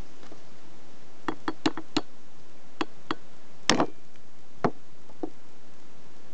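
Sharp knocks on a metal tube held over a valve spring of a four-stroke scooter cylinder head, striking the spring retainer to free the valve collets so the valve can come out. About nine irregular knocks, the loudest a little past halfway.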